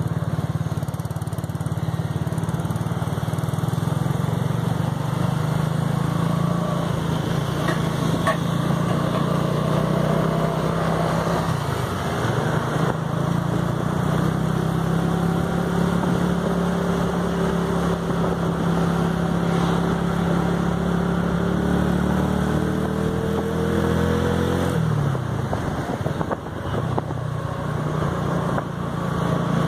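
Motorcycle engine running under way. Its note climbs slowly for several seconds, then falls away suddenly near the end as the throttle comes off, and it keeps running after.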